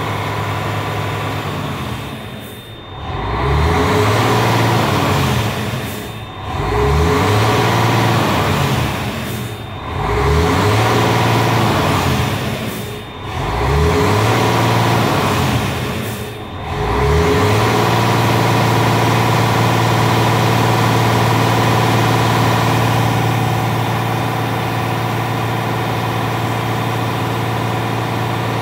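Mercedes-Benz Axor truck's diesel engine being revved: five throttle blips about three and a half seconds apart, each dipping and then climbing back, then held at a steady raised speed that eases off slightly near the end. The engine is being run hard to bring it up to temperature for a viscous fan-clutch test.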